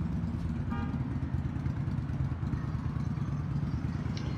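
An engine idling steadily, a low even rumble, with one short high chirp about a second in.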